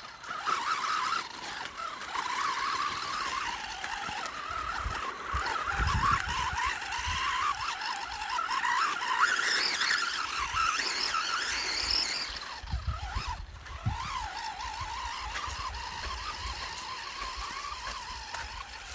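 WLtoys 12428 RC crawler's electric motor and gears whining as it drives over sand and stones, the pitch rising and falling with the throttle. Low rumbles about six and thirteen seconds in.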